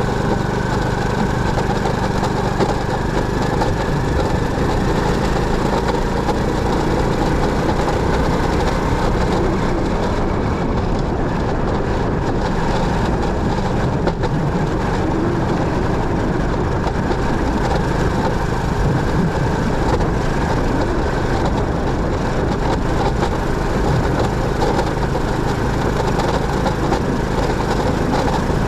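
Motorcycle running steadily: a constant engine hum under an even haze of noise.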